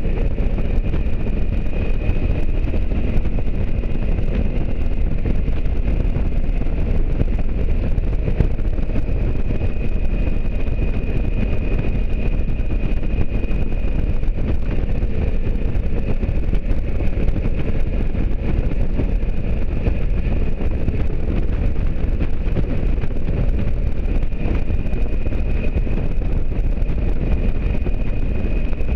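Motorcycle riding at a steady cruising speed: a constant engine drone mixed with wind rushing over the microphone.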